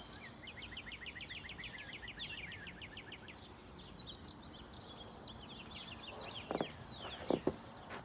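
Northern cardinal and American robin singing: a fast run of down-slurred whistled notes, then more varied phrases. A few sharp thumps near the end.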